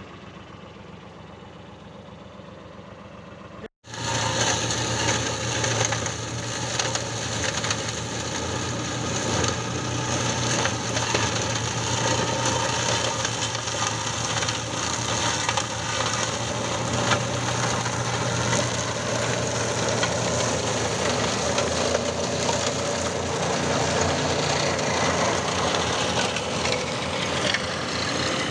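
A John Deere tractor runs a PTO-driven flail mulcher that shreds piles of olive pruning branches: a steady engine drone under the dense crunching of wood being chopped. For the first few seconds there is only quieter machine noise, then the sound cuts out briefly and the loud shredding starts.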